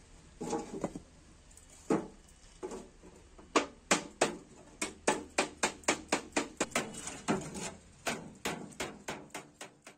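Hammer beating the cut edge of a thin tin container against a brick to fold the sharp metal over: a few scattered knocks, then from about three and a half seconds in a quick run of sharp metallic taps, about three a second.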